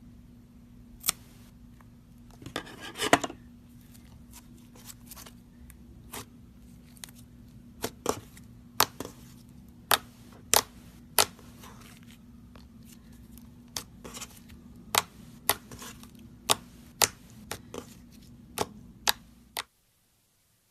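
Slime-filled stress ball being cut, with sharp, separate snips and clicks every second or so and a short crinkling burst about three seconds in. A steady low hum runs underneath and cuts off abruptly near the end.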